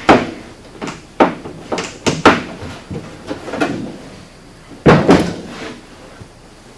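Irregular knocks and clunks, about ten in all, as the cargo box is handled; the loudest come at the very start and around five seconds in.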